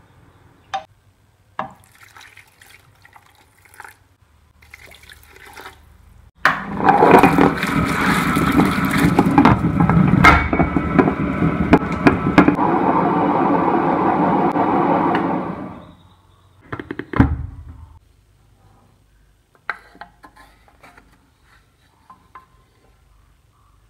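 Electric mixer grinder running for about nine seconds, grinding grated coconut and dried red chillies into a wet masala paste; the motor starts suddenly and cuts off. A few light clicks of the jar being handled come before it, and a couple of knocks after it.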